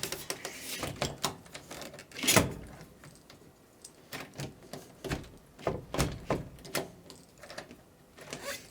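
Scattered, irregular clicks, taps and knocks of hands working with deadbolt and door hardware, with a louder knock about two seconds in and another about six seconds in.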